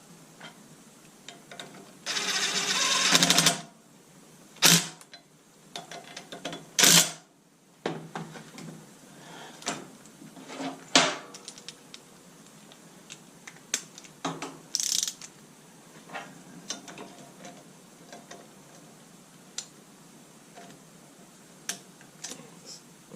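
Metal tools and parts clinking and knocking as bolts are fitted during reassembly of a forklift's reverser, with a run of rapid clicking lasting about a second and a half starting about two seconds in.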